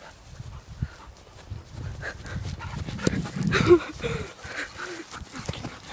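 A dog growling in rough play-fighting, with a few short whines, loudest a little past halfway.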